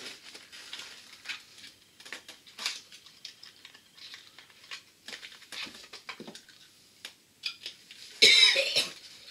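Light clicks and rustles of small objects being handled, then about eight seconds in a man coughs loudly.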